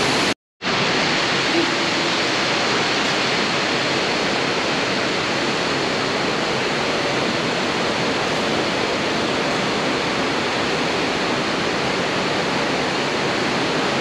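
Steady rushing of Fukuroda Falls' cascading water, with a brief gap of silence just under a second in.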